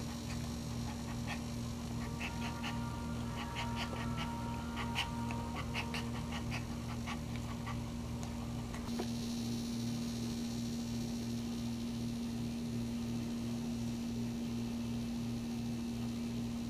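Small white dog in labour whining, with a thin high whine and a cluster of short high whimpers from about two to seven seconds in. A steady low hum with a pulsing beat runs underneath.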